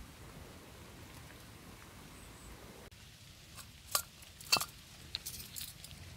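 A faint steady hiss, then a handful of sharp metallic clicks and ticks from a gloved hand working a screw-on gas canister camping stove, the two loudest about four and four and a half seconds in.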